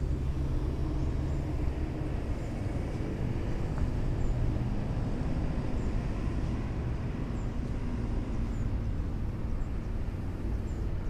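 Steady wind rumble on the microphone, with the faint running hum of a small RC model plane's electric motor and propeller as it taxis on tarmac.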